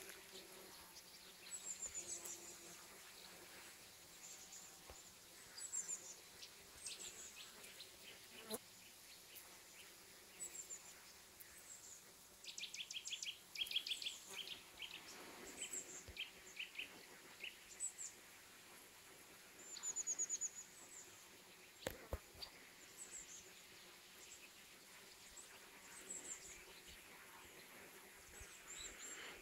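Bees buzzing faintly and steadily among flowers, with small birds chirping: short, high chirps repeating every second or two, and a quick run of trilled chirps about halfway through.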